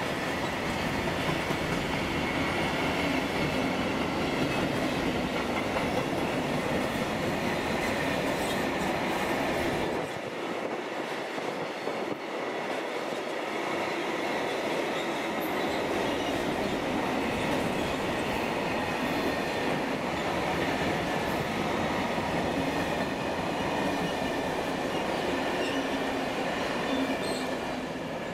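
A freight train's covered sliding-wall box wagons rolling past, their wheels rumbling and clacking steadily on the rails, with a faint steady high squeal from the wheels. The sound dies away at the end as the last wagon passes.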